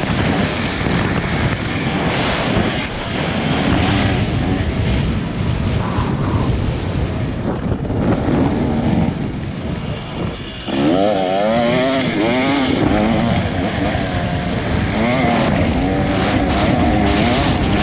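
Dirt bike engine revving up and down as the bike is ridden hard, with wind rushing over the helmet camera. About ten seconds in the revs fall away briefly, then pick up sharply again.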